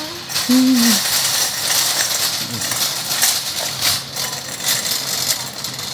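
Metal shopping cart rattling and clattering as it is pushed over the store floor, a steady run of small clicks and jangles.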